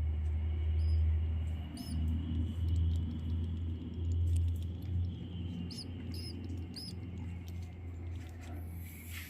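Swiftlets chirping: scattered short, high looping chirps and quick clicks, over a steady low hum.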